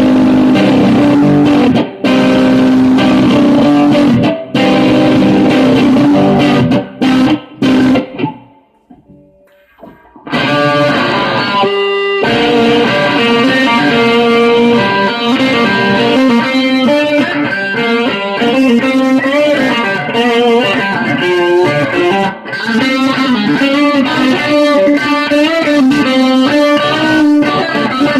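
Stratocaster-style electric guitar played loudly. It breaks off abruptly about eight seconds in, drops almost to silence for about two seconds, then comes back in with a busier run of notes.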